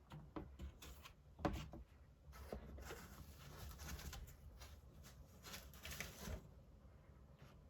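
Packaging being handled during an unboxing: quiet rustling and scattered clicks, with one sharp knock about a second and a half in.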